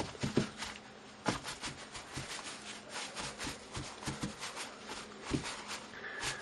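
A crumpled wad pressed and dabbed again and again onto wet acrylic paint on a canvas, giving irregular crinkling rustles and soft taps.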